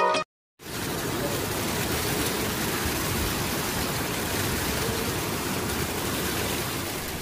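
Rain falling steadily, a dense even hiss that begins about half a second in.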